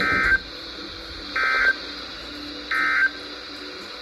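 Emergency Alert System end-of-message signal on NOAA Weather Radio: three short buzzy digital data bursts (the SAME "NNNN" code), each about a third of a second long and about 1.3 seconds apart, marking the end of the alert.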